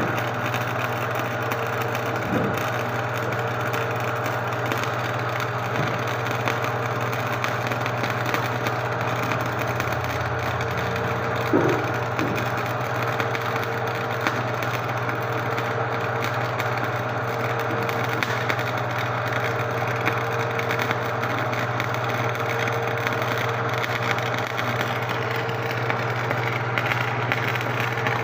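Arc welding on a vehicle leaf spring: the welding arc crackles steadily, with a constant low hum underneath and a couple of brief knocks.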